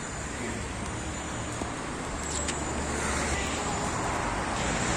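Steady road traffic noise of passing cars, growing slightly louder in the second half.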